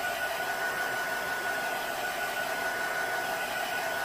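Steady blowing hiss of a running fan-type appliance, with a faint constant high-pitched tone.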